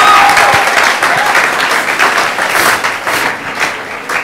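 Congregation applauding, loudest at the start and gradually tapering off.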